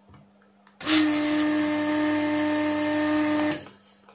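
Electric vacuum desoldering gun's pump running steadily with a held tone, sucking old solder off circuit-board joints to clear dry solder joints. It starts about a second in and cuts off near the end, after about three seconds.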